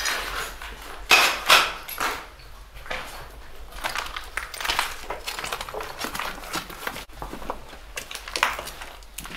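Irregular clinks and crunching knocks of hard objects, with the loudest pair about a second in and fainter scattered ones after.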